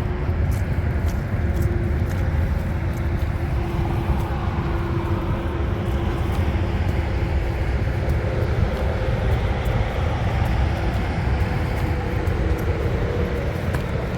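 Steady low rumble of highway traffic and trucks running, with faint engine hum that drifts in pitch and light scattered clicks.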